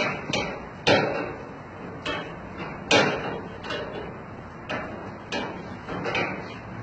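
Carpet-wringing machine clattering with a run of sharp knocks at uneven spacing, roughly one a second; the loudest come about one and three seconds in.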